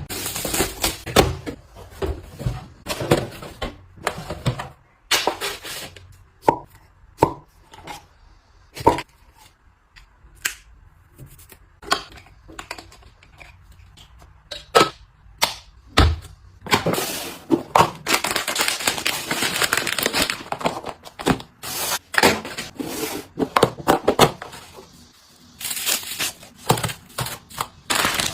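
Household items and packaging being handled during restocking: a string of sharp knocks and clicks as things are set down and opened, with longer spells of crinkling and rustling partway through and near the end.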